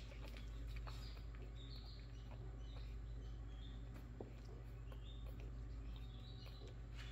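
Newborn Jack Russell terrier puppies squeaking while nursing: short, high, chirp-like squeaks every half second or so, over a low steady hum.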